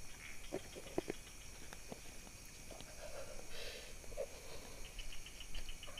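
Night insects droning steadily at a high pitch, with a quick run of short chirps near the end. A few soft clicks and a faint low murmur sound about halfway through.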